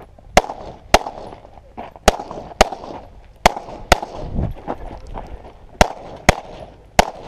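Handgun shots fired in quick pairs, about half a second apart within each pair, nine shots in all, with a second or so between pairs.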